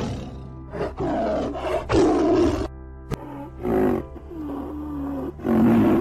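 Tiger roaring in several harsh bursts over background music.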